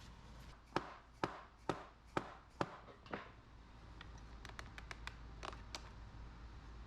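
A series of sharp knocks about half a second apart, then a run of lighter, quicker taps and clicks.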